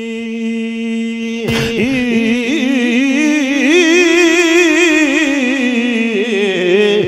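A man singing a line of Punjabi devotional verse in a drawn-out, ornamented style over a steady drone note. A long held note gives way, about a second and a half in, to a new phrase whose pitch wavers, climbs, then slowly falls.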